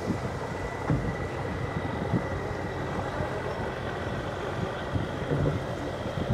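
Busy fishing-harbour ambience: a steady engine drone under a faint high whine, with a few faint scattered knocks and distant voices.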